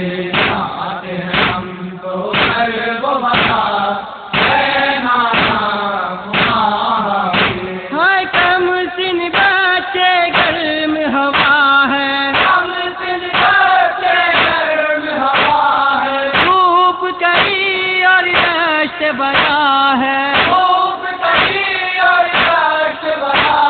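A male voice chanting a noha, a Shia lament, in long wavering melodic lines. For the first several seconds it is carried over a steady beat of thuds.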